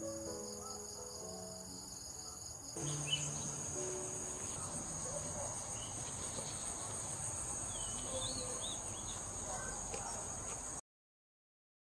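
Steady high chirring of insects, with a few short chirps above it in the second half. Soft piano music plays over it for the first three seconds, and the sound cuts off about a second before the end.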